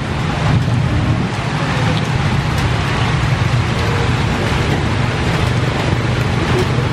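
Steady background drone: a low hum under an even hiss, holding level throughout.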